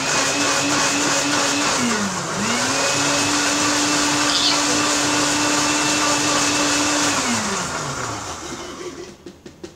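Electric countertop blender running at a steady pitch. About two seconds in, its speed drops briefly and picks up again. Near the end it is switched off and winds down over about a second.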